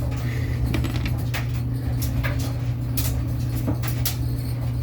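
Scattered clicks and light knocks of a hose and plastic fittings being handled as the hose is pushed onto a Whirlpool washing machine's replacement part, over a steady low hum.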